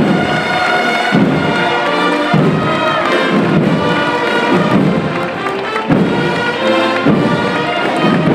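Band music: a slow processional march, with sustained melody notes over a heavy drum beat about once a second.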